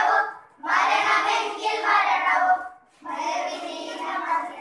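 A group of children singing together in unison, in phrases with held notes and short breaks about half a second and three seconds in.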